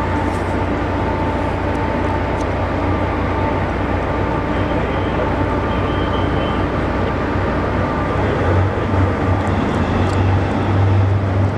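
Steady drone of a motorboat under way: its engine hums low, over a rush of wind and water, getting a little louder near the end.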